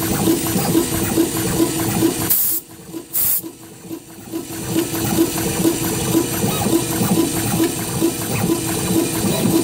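CNC sign machine drilling and setting braille beads into a sign panel: a steady rushing hiss with a short low pulse about twice a second. About a quarter of the way in it breaks off briefly, with two sharp hissing bursts, then carries on.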